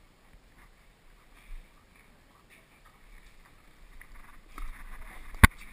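A horse taking a carrot from a hand through stall bars: soft rustling and munching that builds up over the second half, then one sharp knock shortly before the end.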